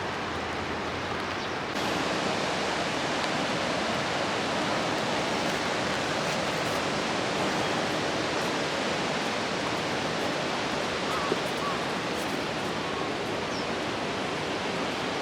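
Steady rushing hiss of water from falling rain and the flowing river, stepping up a little in level about two seconds in.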